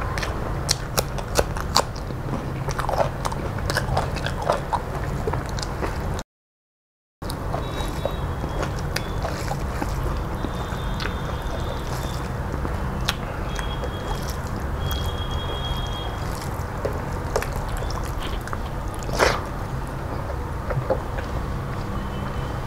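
Close-up eating sounds: crunching bites of raw okra, chewing, and rice being squished into dal by hand, a run of sharp clicks and crunches with one louder crunch near the end. A steady low hum runs underneath, and the sound drops out completely for about a second near the start.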